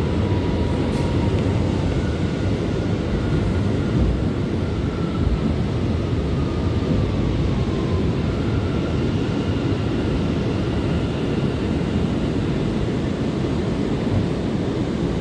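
Inside an R179 subway car pulling out of an elevated station: a steady rumble of wheels and running gear, with a faint electric motor whine that glides down in pitch and then holds steady.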